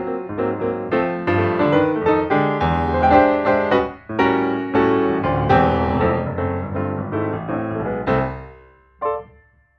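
Background piano music playing a melody over chords. The music fades away a little after 8 seconds in, and one last short note sounds near the end.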